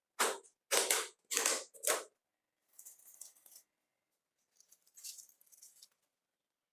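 Work on a rusted metal toy car: four short, sharp rasping strokes in quick succession, then two softer, hissier scrapes.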